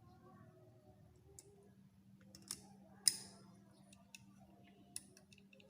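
Scattered sharp clicks and taps of small hard parts being handled, the loudest a single click about three seconds in, over a faint steady hum.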